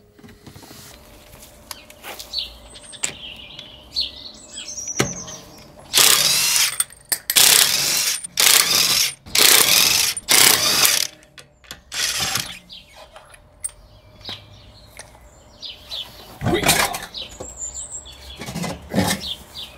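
Cordless impact wrench undoing the wheel nuts, in about five short loud bursts one after another, then a few knocks near the end as the wheel is pulled off. Birds chirp faintly in the background.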